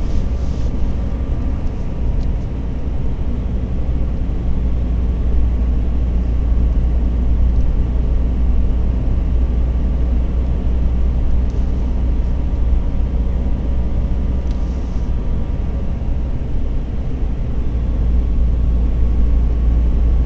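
A car driving at a steady speed, heard from inside the cabin: a continuous low rumble of engine and road noise.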